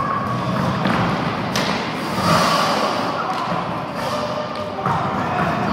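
Roller hockey in play: skate wheels rolling on the rink floor, with several thuds and knocks of sticks and ball.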